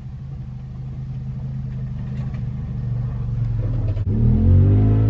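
2013 Ford F-150's 5.0 L V8 engine running, growing steadily louder, then getting louder about four seconds in as its note rises and falls back.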